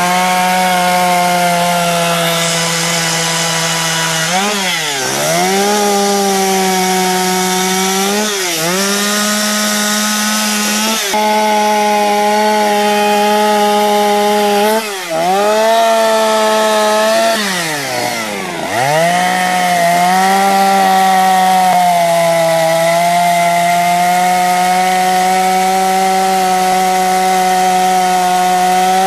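Chainsaw running at high speed while carving wood. Its engine note dips sharply and recovers about six times as the chain bites into the wood under load.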